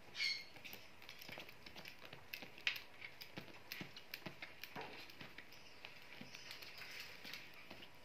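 A short parrot chirp right at the start, then scattered light taps and scratches of parrots' feet and beaks moving about on the bedding and a plastic cage tray, one tap a little louder under three seconds in.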